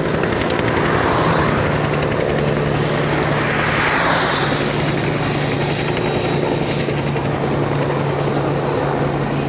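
Firefighting helicopter flying low close by, its rotor and engine running steadily.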